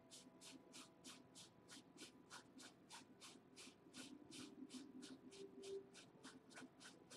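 Faint scratching of a fine paintbrush on canvas in short, quick, evenly repeated strokes, about three a second.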